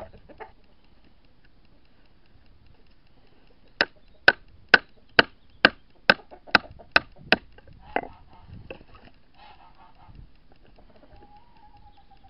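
Wooden mallet striking the back of a knife driven into dry, hard oak burl: a run of about ten sharp knocks at a steady pace, a little over two a second, followed by a few fainter knocks.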